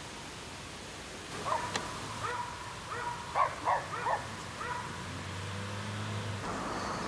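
A dog barking: a quick run of about eight barks over three or four seconds, over a steady outdoor hiss. A low steady hum follows for a second or so near the end.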